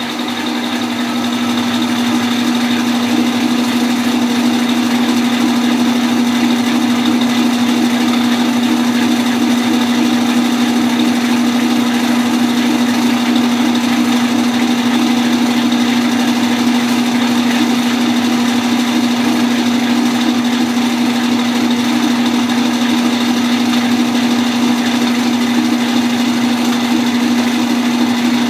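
Kenmore KLA7924FQ0 top-load agitator washer with a belt-drive transmission, running empty on a rinse cycle. It gives a loud, steady mechanical hum with one strong low tone, swelling slightly in the first second and then holding even.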